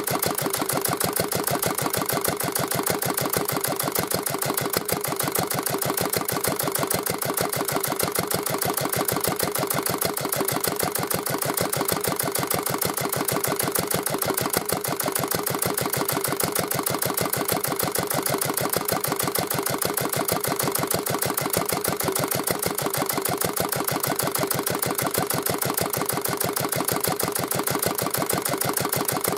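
Old Yanmar single-cylinder diesel stationary engine running steadily with no load, a regular, even beat of firing strokes.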